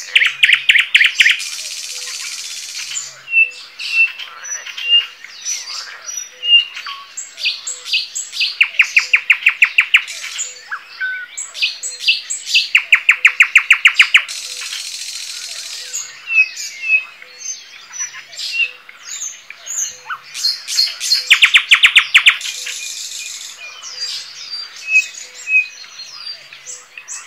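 Songbirds singing in a spring dawn chorus: several loud, fast trills of about a second each stand out over many scattered chirps and whistles. A faint low call repeats steadily about once a second underneath.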